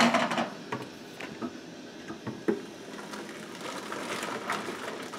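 Thick blended liquid pouring from a glass blender jar into a plastic bucket, mostly in the second half, after a few clicks and knocks as the jar is handled.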